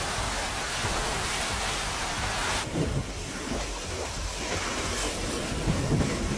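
Hurricane-force wind and driving rain as a loud, steady rush. About two and a half seconds in the sound changes to gusting wind with uneven thumps of wind hitting the microphone.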